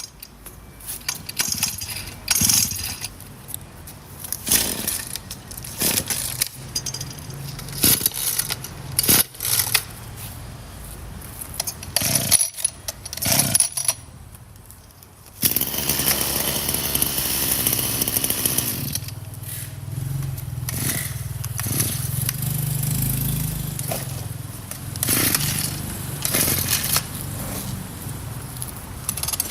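Metal clatter and knocks of a tool being handled, then, about halfway through, a small petrol engine of the kind on a Stihl chainsaw or brush cutter starts and runs steadily.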